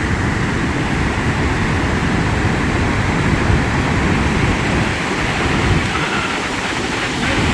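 Gullfoss waterfall rushing steadily, mixed with strong wind buffeting the microphone.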